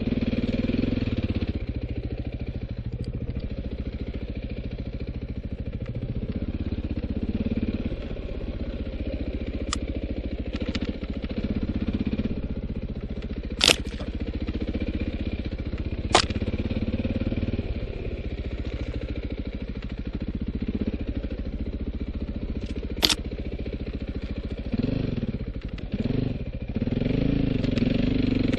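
2009 KTM 450 XC-W's single-cylinder four-stroke engine running as the dirt bike is ridden along a trail, its revs rising and falling with the throttle. A few sharp knocks stand out, two close together about halfway through and one more later on.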